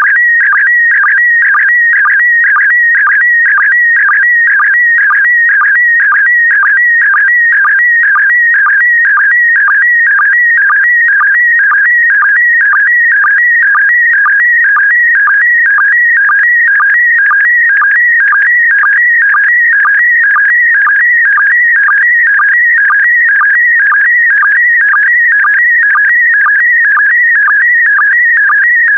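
PD120 slow-scan television (SSTV) signal: a loud, steady, warbling electronic tone, broken about twice a second by a short lower-pitched sync pulse that marks each new scan line. It is a picture being transmitted line by line for a decoder to rebuild.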